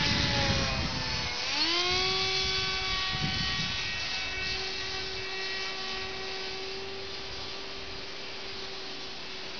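Radio-controlled model airplane's engine, a steady buzz that drops in pitch as it passes, rises sharply about a second and a half in, then holds one pitch while slowly fading with distance. Wind buffets the microphone near the start.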